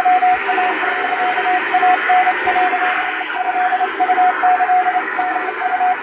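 Japanese wabun Morse code sent at high speed with an electronic keyer: a single tone of about 700 Hz keyed in quick dots and dashes over steady radio hiss, with faint clicks alongside.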